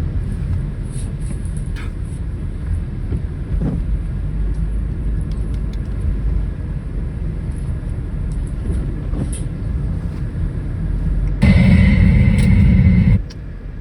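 A car driving, with a steady low rumble of engine and road noise. About eleven and a half seconds in, a much louder rush of noise comes in suddenly, lasts under two seconds, and cuts off just as suddenly.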